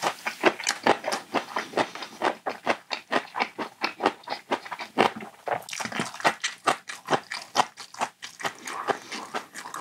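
Close-miked mouth chewing a mouthful of kimbap: a quick, even run of wet smacks and clicks, about three to four a second.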